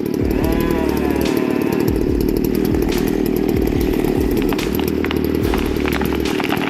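Chainsaw engine running steadily without a break.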